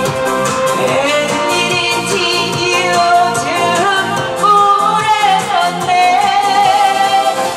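A woman singing into a microphone, amplified over a backing track with a steady beat; she holds long notes with vibrato, the longest in the second half.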